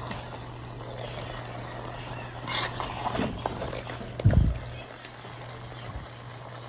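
Wooden spatula scraping and turning pieces of pork and vegetables in a hot pan, with a light sizzle and a steady low hum underneath; a dull thump about four seconds in.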